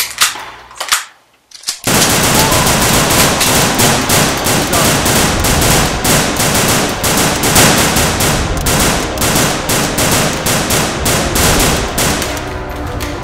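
Gunfire sound effects: a few sharp single shots, a pause of about a second, then about ten seconds of dense, nearly continuous rapid fire from several guns at once, easing slightly near the end.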